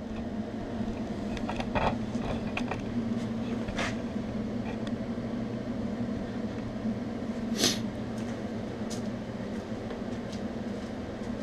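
Steady low machine hum with a few sharp clicks and knocks; the loudest click comes about seven and a half seconds in.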